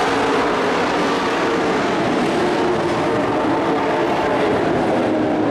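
Several dirt-track race trucks' engines running hard together around the oval, a loud steady blend of engine notes.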